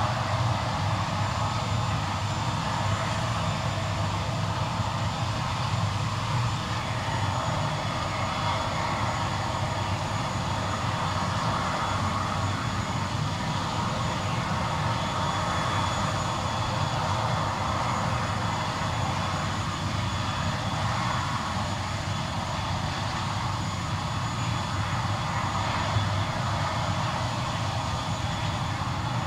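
Citilink ATR 72-600's Pratt & Whitney PW127 turboprop engine running steadily on the ground, its propeller turning. A continuous rumble carries a thin, high turbine whine.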